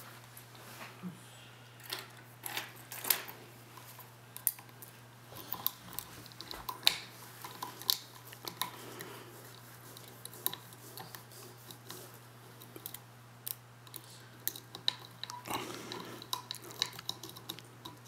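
Lock picks working the pins inside the brass pin-tumbler cylinder of a Zeiss-Ikon cabinet lock: irregular light metallic clicks and scrapes as the pins are picked and then raked, with the lock not yet open. A steady low hum runs underneath.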